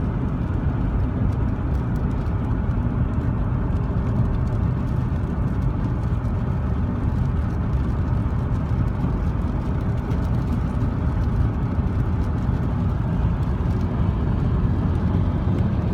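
Steady road noise heard from inside a car driving on a wet highway: tyres on wet pavement and engine, a low, even rumble.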